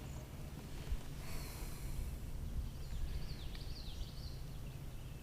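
Quiet outdoor ambience on the water: a steady low wind rumble on the microphone, with a soft thump about a second in and a short run of high, pitch-sweeping chirps around the middle.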